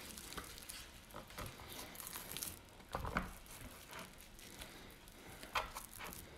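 Gloved hand smearing mustard over a slab of raw pork ribs on a wooden cutting board: faint, irregular wet squishing and patting, with a couple of sharper slaps about three seconds in and shortly before the end.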